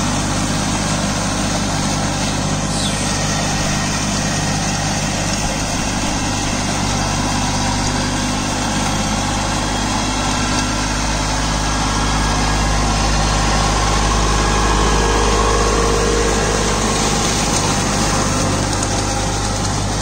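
Kubota Neostar B2441 mini tractor's three-cylinder diesel running steadily under load, its PTO-driven rotary tiller churning through flooded paddy mud during puddling. The sound grows louder for a few seconds past the middle.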